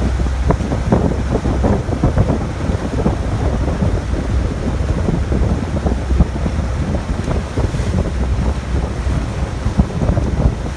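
Wind buffeting the microphone on a moving boat, with sea water rushing and splashing alongside over a steady low rumble.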